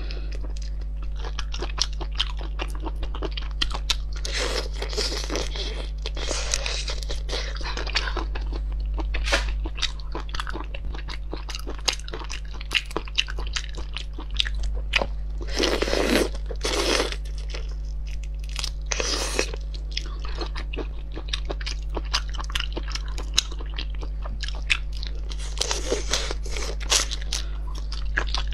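Close-miked crackling and clicking of raw marinated shrimp shells being peeled by hand and chewed, with wet mouth sounds and several louder crunchy bursts. A steady low hum runs underneath.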